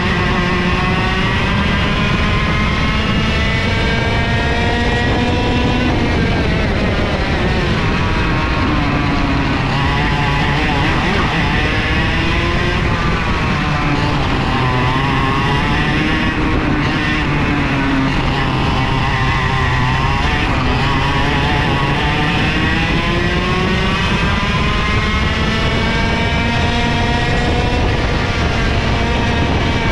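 IAME KA100 100cc two-stroke kart engine running at racing speed: its pitch climbs along the straights and drops off into the corners, several times over.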